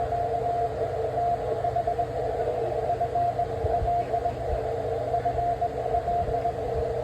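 Morse code (CW) heard on a shortwave ham transceiver on the 20 m band: keyed beeping tones, two signals at slightly different pitches, over steady band hiss and static.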